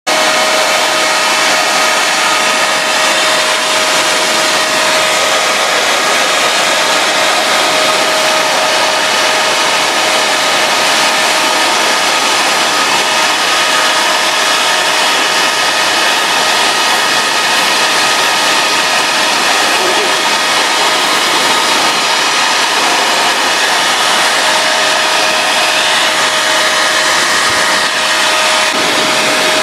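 Electric air blower running steadily: a loud rush of air with a constant high whine over it.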